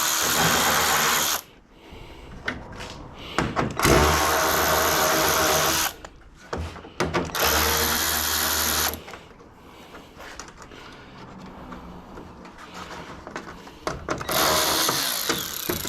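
Cordless drill-driver whirring as it backs out the screws along the top of a van's front grille. It runs in four spells of a second or two each, with quieter clatter of handling between them.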